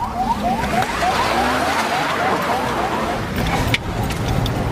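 An electronic siren in a fast yelp, short rising chirps about four a second, fading out about three seconds in, over the rushing road noise of a moving vehicle. A sharp click comes near the end.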